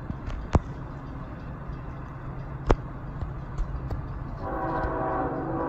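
Diesel locomotive approaching slowly with a steady low engine rumble, then sounding its air horn about four and a half seconds in, a steady multi-note chord held past the end. Two sharp clicks come earlier.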